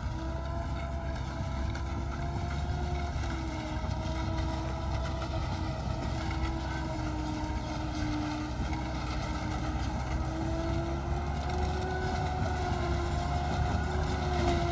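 Tractor-driven corn silage harvester running, a steady engine drone with a whining tone that wavers slightly in pitch.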